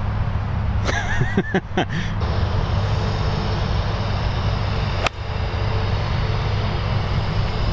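A golf iron strikes a ball once, a single sharp click about five seconds in, over a steady low rumble.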